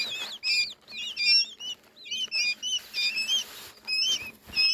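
Several goslings peeping: short, high chirps, many overlapping and following each other rapidly. A soft rustle sounds about three seconds in.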